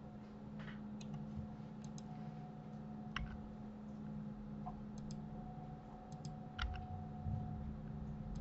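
Computer mouse and keyboard clicks, short and irregularly spaced, over a faint steady low hum.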